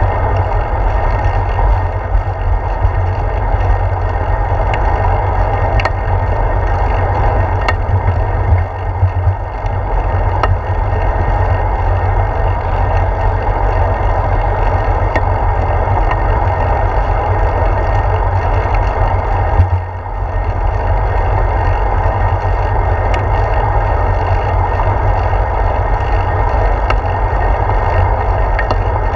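Steady wind rush and road rumble on a handlebar-mounted GoPro Hero 4 as the bicycle rolls along the road, with a few small clicks and rattles from the bike and mount.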